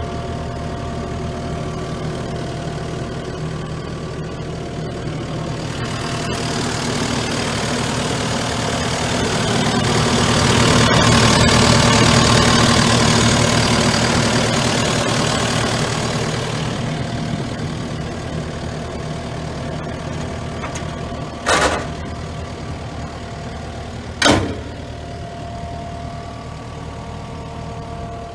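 Kubota SVL75-2 tracked skid steer's four-cylinder Kubota V3800 diesel engine running. It grows louder for several seconds in the middle and then settles back to a steady idle. Near the end come two sharp knocks about three seconds apart.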